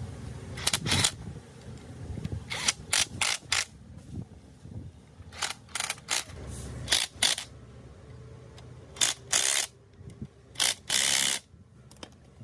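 Impact wrench tightening the connecting-rod cap bolts on an engine crankshaft: about a dozen short bursts of rapid hammering, some in quick pairs, with a low hum in between during the first half.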